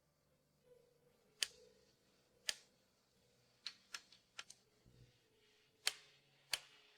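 A series of about nine short, sharp clicks or taps at irregular intervals, some singly and some in quick pairs, against a faint background.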